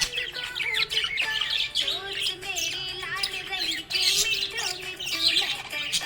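Budgerigar chirping and warbling continuously, a rapid stream of high twitters over a lower wavering warble.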